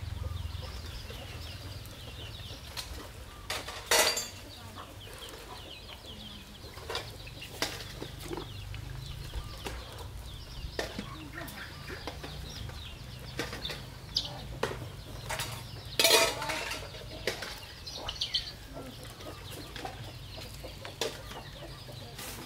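A plastic fine-tooth comb scraping through hair and over the scalp, lifting dandruff flakes, in short scratchy strokes with sharp clicks; the loudest strokes come about four seconds in and again about sixteen seconds in. Chickens cluck faintly in the background over a low steady rumble.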